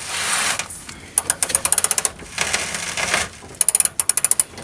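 A hand ratchet wrench with a 5/8 socket working a bolt loose: twice, a grating turning stroke of the bolt in its threads is followed by a rapid run of pawl clicks as the handle swings back.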